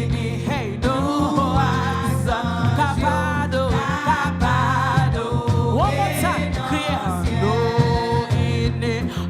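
Gospel worship song: singing over instrumental accompaniment with steady sustained low notes underneath.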